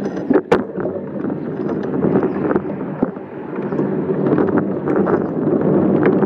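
Bicycle being ridden, its tyres rumbling on the path and the frame rattling with many small clicks, picked up by a phone mounted on the bike, with wind buffeting the microphone. The noise grows a little louder as the ride goes on.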